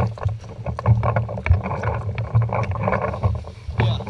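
Footsteps crunching and rustling through dry leaf litter in patches as the wearer of the camera moves, over a low rumble of wind and movement on the camera's microphone, with scattered sharp clicks.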